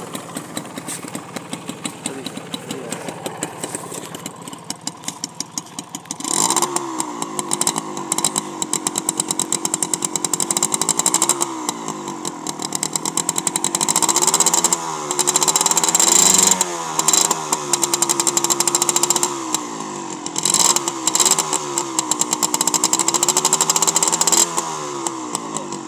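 Honda H100S CDI motorcycle's small single-cylinder engine idling with a steady pulse. From about six seconds in it is revved over and over with the throttle, its pitch rising and falling, with a few longer held high revs.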